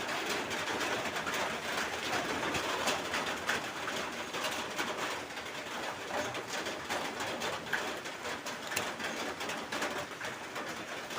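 Small metallic clicks and scrapes of a motorcycle chain's connecting-link lock clip being fitted with pliers, with pigeons cooing in the background.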